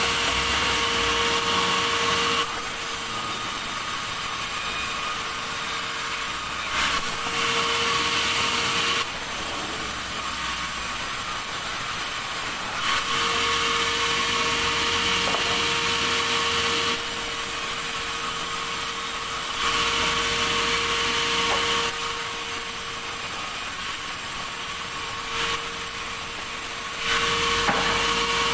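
Sawmill saw running steadily with a high whine, cutting through a log, growing louder and harsher in stretches of a few seconds as the blade bites into the wood, then easing back between passes.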